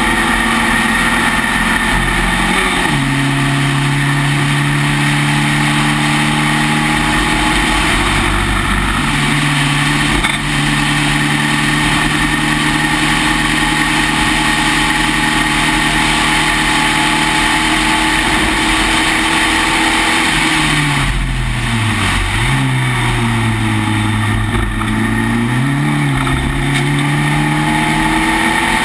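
Spec Racer Ford's four-cylinder engine running hard on track, heard onboard through a constant rush of wind in the open cockpit. Its pitch steps once about three seconds in. Later in the stretch the pitch falls off and wavers for a few seconds as the car slows for a corner, then climbs again near the end.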